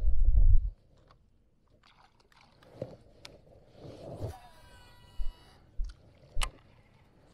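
A loud low rumble on the microphone in the first second. Then scattered sharp clicks and knocks from fishing gear being handled in a boat, with a short falling whine near the middle.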